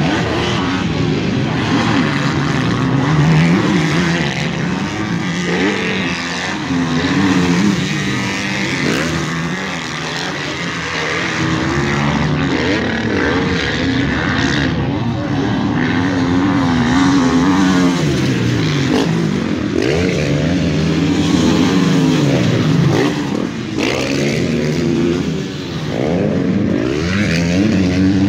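Several motocross bikes racing, their engines revving up and dropping back over and over, overlapping pitches rising and falling.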